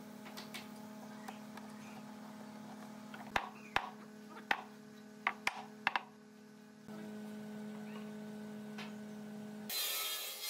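Workshop sounds: a steady hum, with a run of sharp knocks and taps starting about three seconds in. A burst of hiss starts suddenly near the end.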